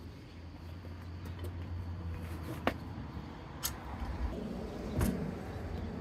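Lug wrench being fitted onto and worked on the lug nuts of a steel wheel. There are two sharp metal clicks about a second apart near the middle, then a dull knock about five seconds in, over a low steady rumble.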